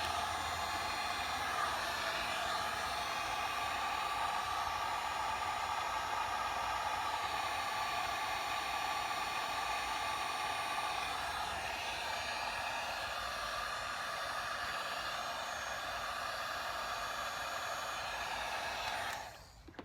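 Electric heat gun running steadily, its fan blowing hot air to shrink heat-shrink tubing over a wire splice; it switches off just before the end.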